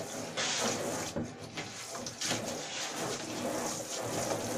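Water from a shower hose spraying and splashing onto a plastic rabbit-cage tray in a bathtub, rinsing off the dirt. The splashing is uneven, rising and falling as the spray moves.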